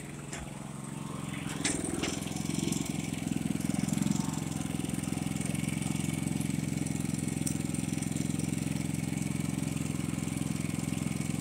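Pulsar G450RN inverter generator running steadily with no load in economy mode, a low even engine hum. It grows a little louder over the first two seconds, then holds steady.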